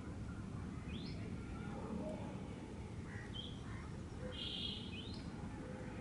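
Birds calling over a low steady rumble: two quick rising whistled chirps, about a second in and near the end, with a short buzzy call just before the second and scattered softer chirps between.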